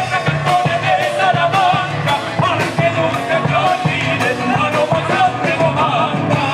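A band playing a song: a singer over guitars and bass, with a steady beat of about two strokes a second.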